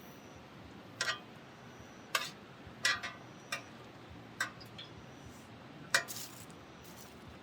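About six light, sharp clicks and taps at irregular intervals over a faint steady hiss.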